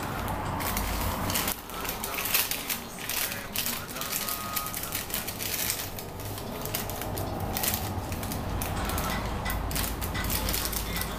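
Plastic food packaging crinkling and rustling as it is handled, in a dense run of rapid, irregular crackles over a steady low hum.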